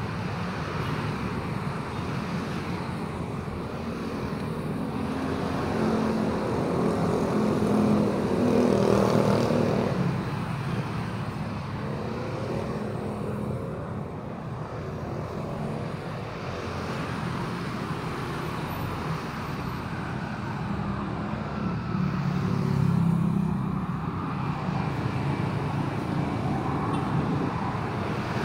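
Street traffic: a steady rumble of vehicle engines and tyres, with engines swelling louder as vehicles pass, about a third of the way in and again near the end.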